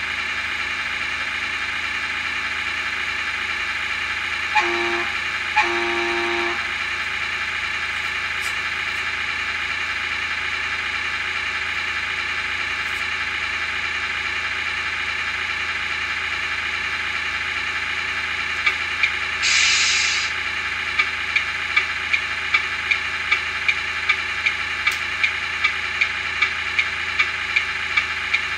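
Recorded diesel engine sound from a Tamiya MFC-01 RC-truck sound unit, idling steadily. Two short horn blasts come about five seconds in. A short air-brake hiss comes about two-thirds through, followed by a steady tick about twice a second.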